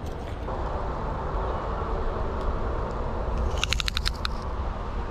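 Steady low outdoor rumble, with a quick run of about seven sharp clicks a little under four seconds in.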